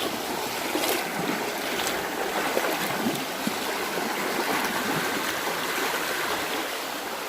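Creek water rushing steadily over rocks with a fairly strong current, with a few small splashes from wading through it.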